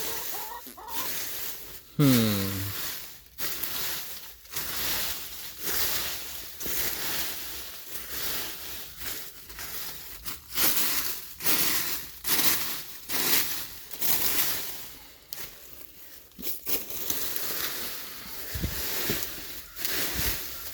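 Hands digging and scrabbling through dry leaf-litter compost bedding, irregular crunching and rustling of leaves. About two seconds in there is a short falling vocal sound.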